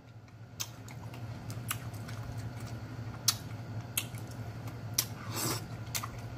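Mouth-open chewing of turkey tails and kale greens: wet lip smacks and clicks, about one a second, with a longer, breathier smack about five and a half seconds in. A low steady hum runs underneath.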